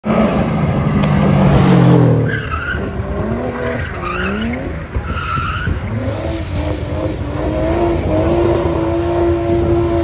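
A car doing donuts: the engine revs up and down while the tyres squeal against the pavement in short spells, then the engine is held at steady high revs near the end.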